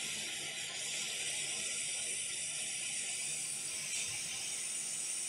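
Hot air rework station blowing a steady hiss of hot air onto a laptop motherboard to desolder a shorted capacitor.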